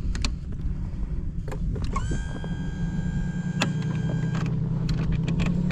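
Outboard motor of a bass boat running with a low, steady hum. About two seconds in, an electric whine of the outboard's power trim rises briefly, holds for a couple of seconds, then stops. A few light knocks are scattered through.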